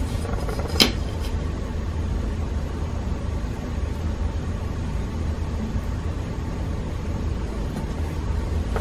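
Steady low room hum, like a running fan, with one sharp tap about a second in.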